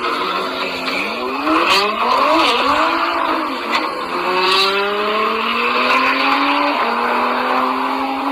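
Open-top car's engine accelerating, its note rising in pitch, dropping at a gear change about two and a half seconds in, then climbing slowly and steadily, over a constant rush of wind and road noise.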